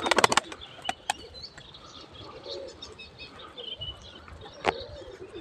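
Faint outdoor bird calls: small birds chirping, and a low coo or two from pigeons. A quick run of clicks at the very start.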